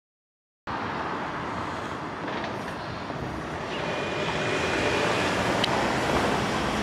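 Total silence for under a second, then steady outdoor urban traffic noise starts abruptly. A faint high tone sounds briefly in the middle and there is a short click near the end.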